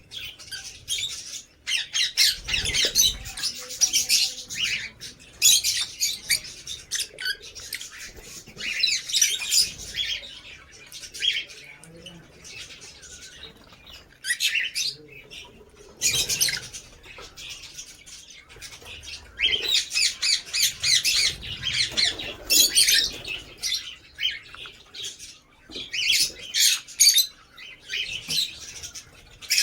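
Lovebirds chattering: rapid, high-pitched calls in bursts a few seconds apart.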